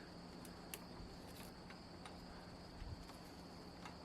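Faint steady insect trilling, a constant high-pitched drone, with a few light clicks and a soft low thump about three seconds in.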